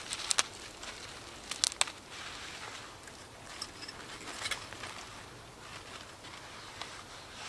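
Scattered sharp crackles and clicks, a few at a time, over a quiet outdoor background.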